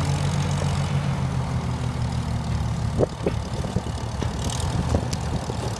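1951 McCormick-Deering W-4 tractor's four-cylinder engine running steadily as the tractor drives slowly, with a single sharp knock about three seconds in.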